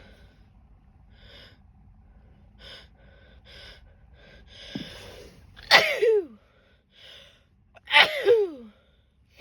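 A woman sneezes loudly twice, about two seconds apart, after a run of short catching breaths; each sneeze falls in pitch as it trails off. The sneezes are brought on by snorted Chinkni sneezing powder.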